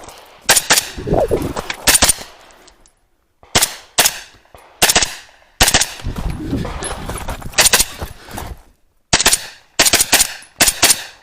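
Pistol-caliber carbine (a 10.5-inch short-barrelled rifle) firing quick pairs and triples of shots, over a dozen in all, with short pauses between the strings.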